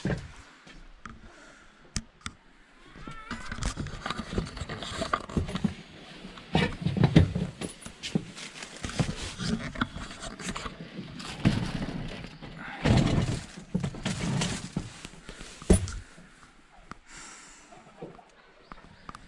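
Irregular rustling, clatter and sharp knocks of someone moving about inside a tent and handling gear, loudest through the middle and quieter near the end.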